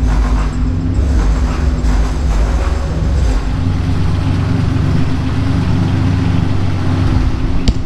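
Bass-heavy music played loud through a car subwoofer system powered by a freshly repaired Kenwood amplifier, on a sound test; the deep bass dominates and stays strong throughout.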